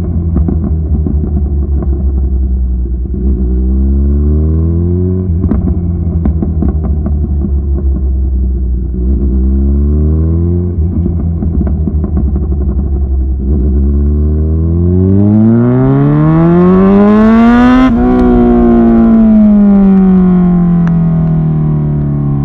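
Kawasaki Ninja 1000SX inline-four through aftermarket Lextek headers and an Austin Racing end can, revving in short blips with popping and crackling from the exhaust as the revs fall. Near the end it climbs in one long rise to high revs, then the revs come down slowly.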